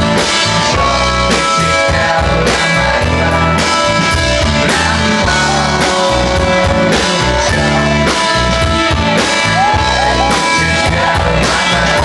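Live rock band playing loud: electric guitars over a drum kit beat.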